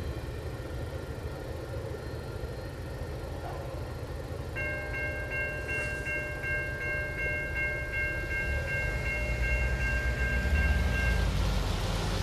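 Railroad crossing's electronic warning bell ringing in a quick, steady rhythm while the gate arms rise, stopping about eleven seconds in. A low rumble of cars driving across the crossing builds near the end.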